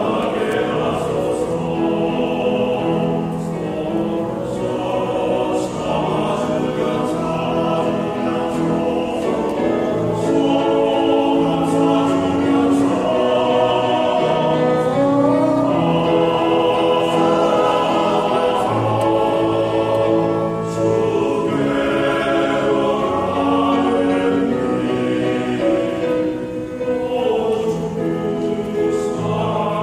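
Church vocal ensemble singing a hymn in harmony, several voices holding long, sustained notes.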